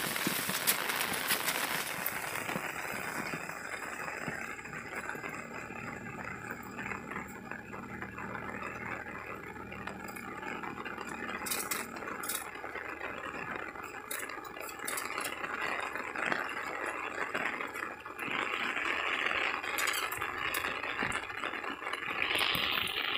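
Rain falling steadily, heavy for the first two seconds and then lighter, with scattered sharp ticks.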